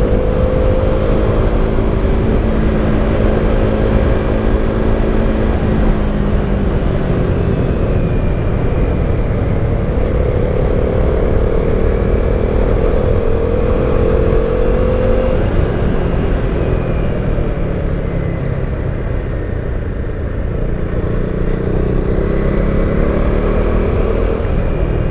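KTM 390 Duke's single-cylinder engine running while riding, its pitch slowly rising and falling several times as the throttle is opened and closed, over a steady low rush of wind noise.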